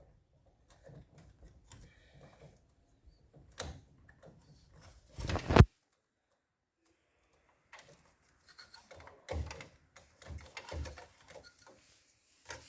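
Clicks, knocks and rattles of small plastic and metal copier drive parts being handled and fitted by hand. There are two sharper knocks in the first half, a short pause, then a cluster of clicks and knocks.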